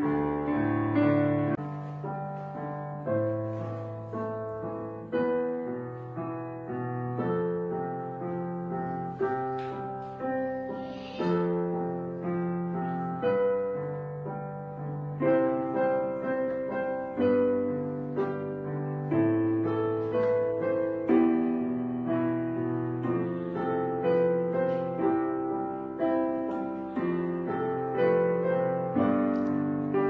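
Background piano music: a steady run of notes and chords, each struck and then fading, about one a second.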